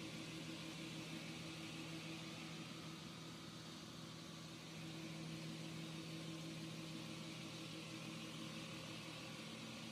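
Bridge-mounted circular diamond saw cutting a rough stone block under water spray: a steady motor hum under an even hiss of the blade and coolant water.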